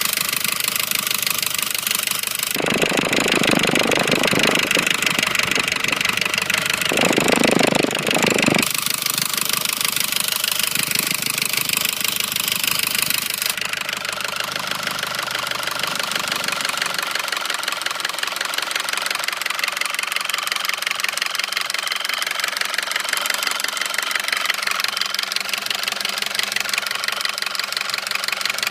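2009 Audi A4 2.0T turbocharged four-cylinder engine running with a rapid, regular knocking. The dealer found metal flakes in and around the cam lobes and recommended a new engine; the owner hears the knock loudest near the PCV.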